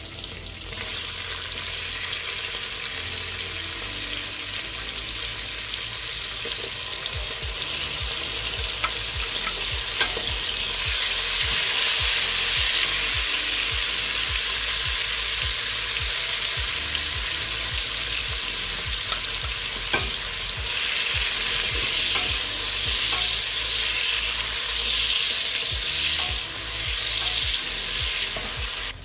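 Okro stew with red palm oil sizzling and bubbling in a stainless steel pot, with onions and salted fish just tipped in: a steady frying hiss that swells louder about a third of the way through and again near the end. A few sharp clicks, likely the wooden spoon against the pot, come through it.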